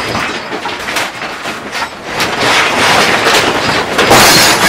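Contents of a high-rise apartment rattling, knocking and clattering without pause as the building sways in a violent earthquake, with objects falling; the din grows louder about halfway in and peaks in a loud crash near the end.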